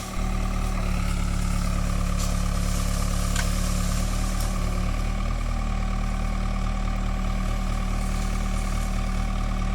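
Case 580E backhoe's diesel engine running steadily with an even low hum.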